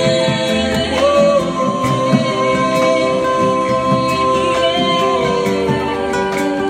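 Live singing with acoustic guitar accompaniment, the voice holding long notes over a steady strummed backing.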